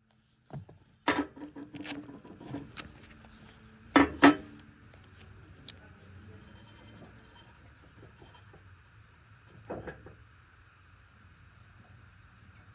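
Knocks and clatter of tools and mower parts being handled, with two loud knocks close together about four seconds in and another near the end, over a faint steady hum.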